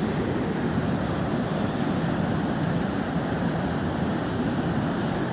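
Fast river water rushing over rapids, a steady, even rush.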